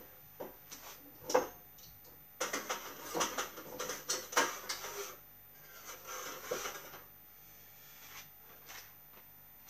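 Handling noise: knocks, clicks and light clatter as a camping gas cylinder with its adapter and braided hose is set upright and positioned on a counter. The noise is busiest from about two and a half to five seconds in.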